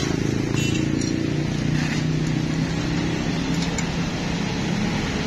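Small petrol engine of a tamping rammer idling steadily, the rammer foot not yet hopping.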